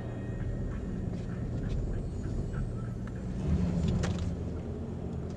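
Car interior road and engine noise while driving on a snow-covered road. About three and a half seconds in there is a louder rushing swell as an oncoming truck passes and throws snow at the car, with a sharp click in the middle of it.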